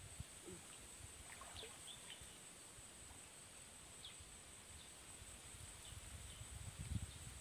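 Faint splashing and dripping of pond water as a gill net is hauled up and lifted out of the water, with louder sloshes about a second before the end.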